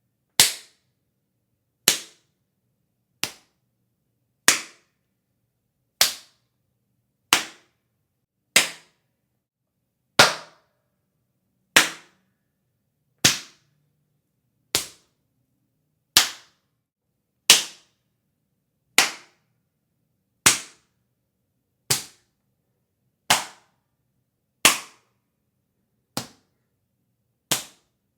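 Hand slaps and smacks on bare skin, one sharp crack at a time, about twenty of them evenly spaced roughly a second and a half apart, each dying away quickly into silence.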